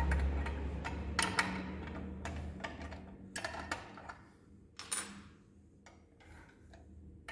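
Scattered metal clicks and clinks from a spanner and the knee-lifter linkage of an industrial sewing machine being fitted and adjusted by hand. A low hum fades out over the first two seconds or so.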